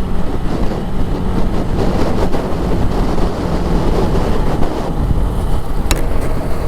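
Motorcycle running at road speed, its engine hum buried in steady wind rush over the rider's microphone, with one sharp click near the end.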